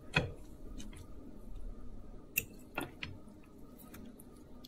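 Fork cutting through a cooked pollock fillet in piquillo pepper sauce on a plate: soft squishes and a few light clicks, the sharpest about two and a half seconds in.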